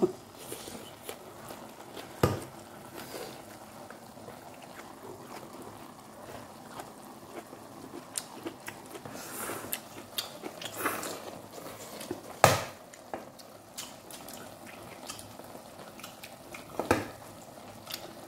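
Eating sounds: chopsticks clicking against a small ceramic rice bowl, a few sharp clicks spread out, with quiet mouth sounds of eating between them.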